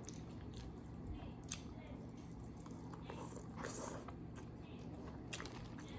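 Close-up mukbang eating sounds: a person chewing and biting into seafood, with scattered small crunches and clicks.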